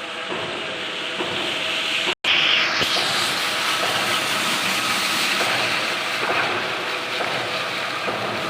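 Plastering machine running with a steady, noisy hiss and rumble. The sound drops out for an instant about two seconds in, then carries on slightly louder.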